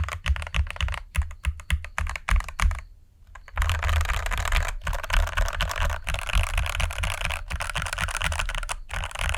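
Typing on the CIDOO ABM084, a tray-mounted TKL mechanical keyboard with a steel plate in a plastic case, which sounds somewhat hollow to its reviewer. A run of keystrokes, a brief pause about three seconds in, then faster, continuous typing.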